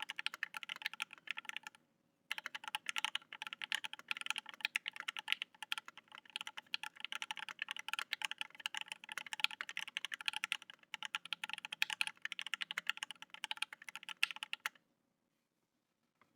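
Typing on a Think 6.5 mechanical keyboard with 43 Studio Toy switches (lubed with Krytox 205g0 and filmed), PBT keycaps and no case foam: a continuous run of rapid keystrokes. There is a brief pause about two seconds in, and the typing stops shortly before the end.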